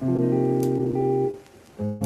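Background music: a held chord played for just over a second, a short drop, then a new chord begins near the end.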